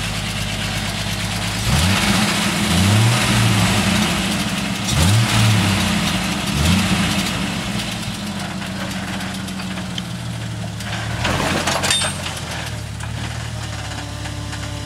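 Jeep engine running at low speed while rock crawling, blipped up and back down several times in the first seven seconds, then holding steadier. A brief harsh noise about twelve seconds in.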